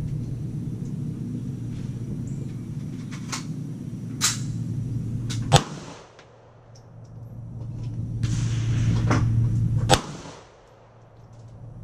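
Semi-automatic pistol shots: two loud, sharp shots about four and a half seconds apart, with a few fainter cracks before them. A steady low rumble runs underneath and falls away briefly after each loud shot.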